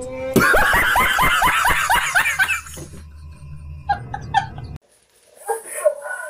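Loud, hysterical laughter in a fast run of "ha"s, about five a second, each one a quick swoop in pitch, lasting a little over two seconds. It ends abruptly just before five seconds in, and softer laughter and voices follow near the end.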